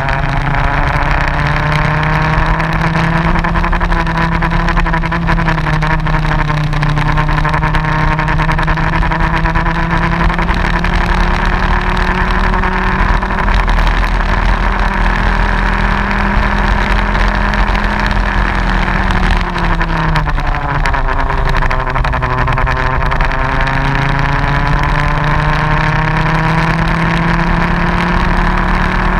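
Racing kart engine running flat out on track, its pitch holding high and creeping up, then falling sharply about twenty seconds in as the kart slows for a corner, and rising again as it accelerates out.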